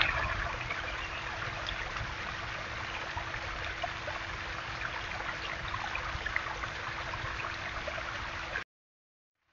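Small backyard waterfall splashing steadily down a stone wall, with a faint steady hum underneath. It cuts off suddenly near the end.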